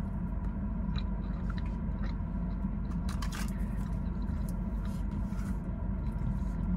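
Chewing and a metal fork scraping in an aluminium foil tray of pasta, small scattered clicks and scrapes, over the steady low hum of the car cabin.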